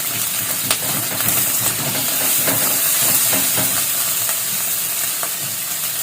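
Corned beef, egg, onion and chili sizzling as they fry in a pan, with short scrapes and clicks of a spatula stirring them.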